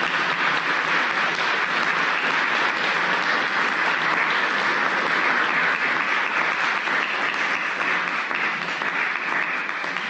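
An audience applauding steadily: many hands clapping at once in a lecture hall.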